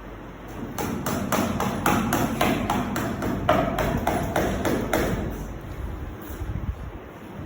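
A nail being driven into a wooden plank by striking it with a person's head. It makes a quick series of knocks, about three or four a second, lasting some four seconds.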